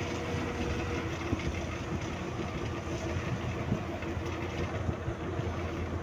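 Steady running noise of a moving road or rail vehicle heard from inside, with a continuous low hum.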